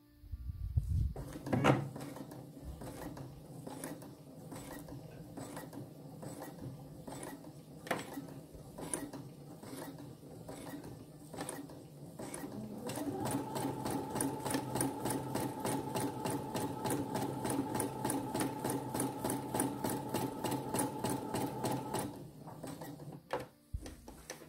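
Domestic sewing machine running a straight stitch for free-motion embroidery, slowly and unevenly at first. About halfway through it speeds up to a steadier, faster run with a motor whine, then stops shortly before the end.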